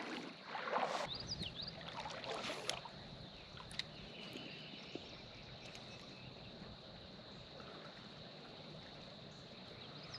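Creek water: irregular sloshing and splashing in the first few seconds, then a faint, steady sound of flowing shallow water with a thin, steady high tone behind it.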